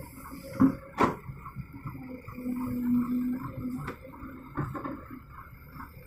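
Kobelco SK210 hydraulic excavator digging mud, its engine and hydraulics running, with a few sharp knocks of the bucket and a steadier hum for about a second and a half in the middle.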